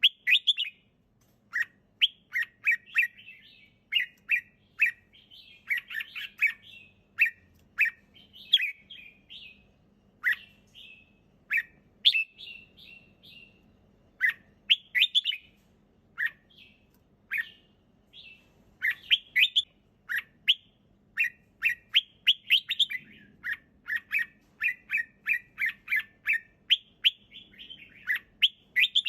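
Red-whiskered bulbul singing: bright, clear chirping phrases of several quick notes, repeated over and over with short pauses between them.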